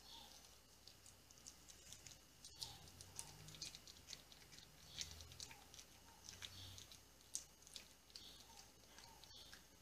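Puppy eating crumbled dry kibble from a stainless steel bowl: faint, irregular crunching and clicking as it chews.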